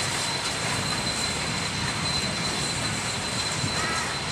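Train rolling slowly past: a steady rumble of wheels on track with a hiss over it and a thin, steady high tone.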